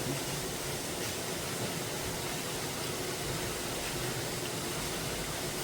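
Steady rain hiss, an even wash of noise with no distinct events.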